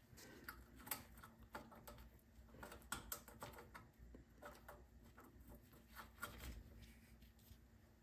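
Faint, irregular clicks and taps of small metal parts being handled as gloved hands fit the small metal sleeves back onto a snowblower's carburetor.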